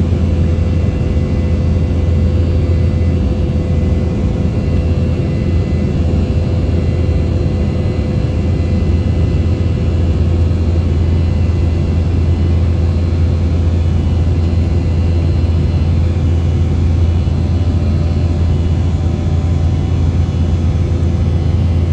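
Steady cabin noise inside an Embraer 190 airliner: the drone of its GE CF34 turbofan engines and the rush of airflow, a deep even hum with a faint steady tone above it.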